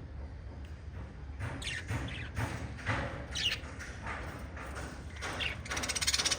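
Lovebirds chirping in a run of short, quick calls, followed near the end by a brief burst of rapid wing flapping.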